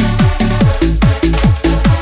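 Fast electronic dance music, a bounce/donk-style remix: a kick drum with a quick falling pitch hits about four times a second over a steady bass line and synth chords.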